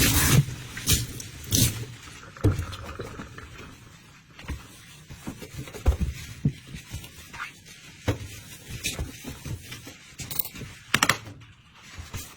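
A loud hiss cuts off about half a second in. Then come scattered light knocks and scrapes of kitchenware being handled, the sharpest about six seconds in and again near eleven seconds.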